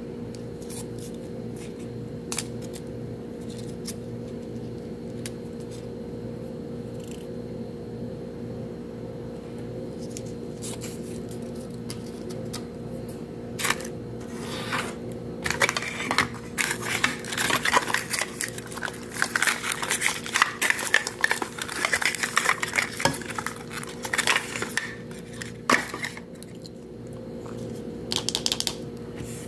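Clicking and clattering of small plastic pieces being handled: Mini Brands toy capsule shell halves and miniatures. A few scattered clicks give way to a busy stretch of handling in the second half, over a steady low hum.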